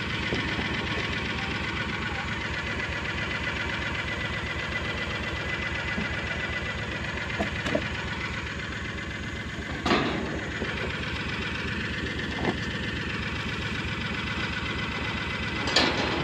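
An engine running steadily at idle with an even, fast low pulse, and a few short louder sounds over it, the loudest about ten seconds in and again near the end.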